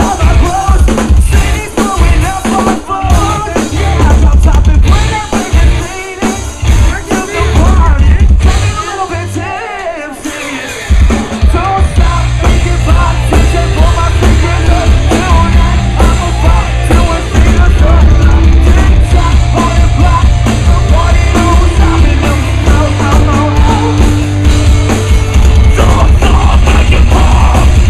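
A live metalcore band playing loud through a club PA, with sung and shouted vocals over drums, bass and electric guitars. After a brief drop about ten seconds in, the full band comes in harder and steadier.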